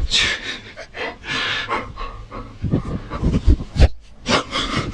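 Chocolate Labrador snuffling and breathing right into a handheld microphone in short, quick puffs, with a couple of low thumps about three and a half seconds in.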